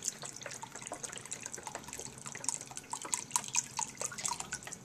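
Chicken stock pouring from a carton into a pot of stock, a steady stream splashing into the liquid with many small, irregular plops and drips.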